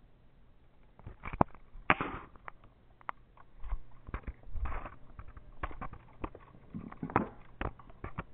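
Irregular sharp clicks and knocks of handling noise on a moving camera, with a few short bursts of rustling.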